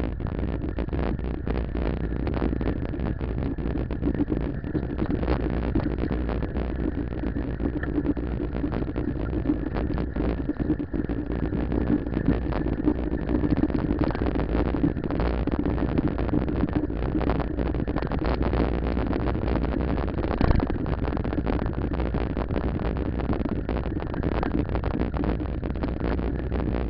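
Steady wind and road rumble on a camera riding on a moving bicycle, with frequent small knocks and rattles and one sharper knock about twenty seconds in.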